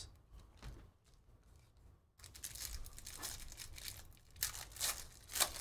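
A trading-card pack's foil wrapper being torn open by hand. It starts about two seconds in as a crinkling rustle, with several sharper rips near the end.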